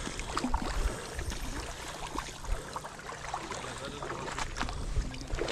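Water splashing and lapping at the edge as a hooked trout is landed by hand, with wind rumbling on the microphone and a few small clicks of handling.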